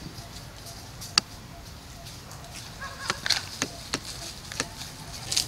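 A few sharp, scattered crackles of thin plastic as a long-tailed macaque handles and bites a clear plastic cup, most of them bunched in the second half.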